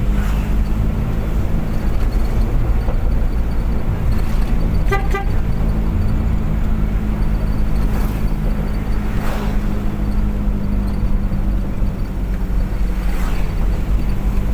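Steady engine and road drone of a vehicle driving at speed, with a brief horn toot about five seconds in and a few swishes from other traffic.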